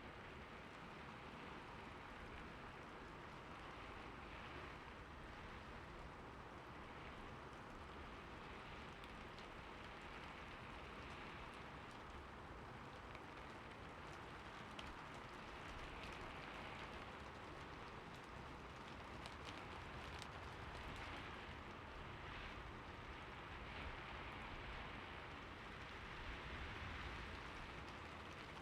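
Soft, steady rain falling in a city: an even hiss with scattered faint drop ticks over a low rumble.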